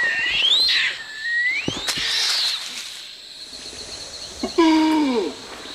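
Borneo rainforest animal calls: long whistled calls that rise and dip in pitch during the first half, a faint fast ticking of insects, and one loud call that drops in pitch about four and a half seconds in.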